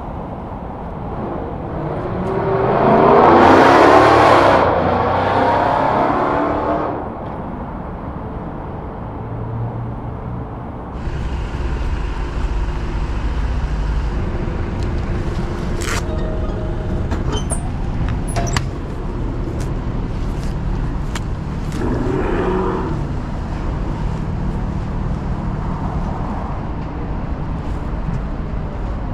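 Road vehicles: one swells up and fades away from about two to seven seconds in, then a steady low engine and traffic rumble follows, with a few sharp clicks around the middle.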